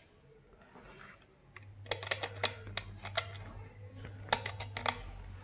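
Quick, irregular clicks and taps, in two clusters about two and four seconds in, from fingers handling and tapping a car subwoofer's textured basket and terminals, over a low steady hum.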